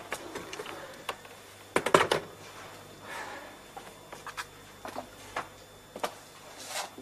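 A telephone handset is put down on its cradle, a cluster of sharp clicks about two seconds in. Scattered lighter knocks and clicks follow.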